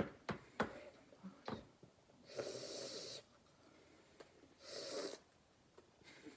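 Close mouth sounds while eating: a few wet chewing clicks, then two long breathy puffs of air.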